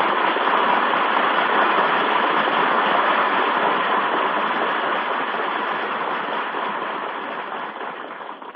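Steady hiss of an old radio broadcast recording, thin and muffled, with no voice or music over it. It fades out slowly near the end.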